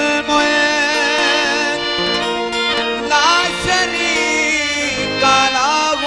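Qawwali ensemble performing. Harmoniums sustain chords while a singer draws out long, wavering wordless notes above them.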